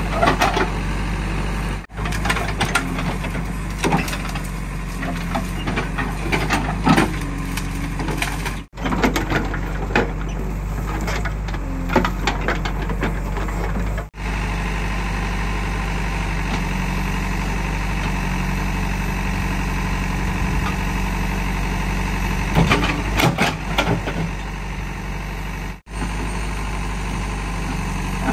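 JCB 3DX backhoe loader's Kirloskar diesel engine running steadily, with sharp cracking and snapping of roots and wood as the bucket works through an uprooted drumstick tree, in clusters at first and again near the end. The sound breaks off briefly a few times.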